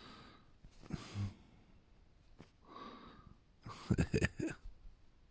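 A person's slow breathing close to the microphone, a breath about every three seconds, with a short burst of clicks and a brief sound about four seconds in.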